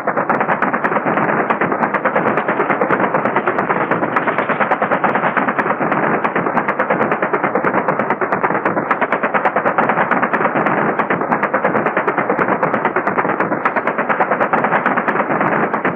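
Sustained rapid-fire gunfire from AH-1 Cobra attack helicopters laying down landing zone suppression fire: a fast, unbroken stream of shots at an even level.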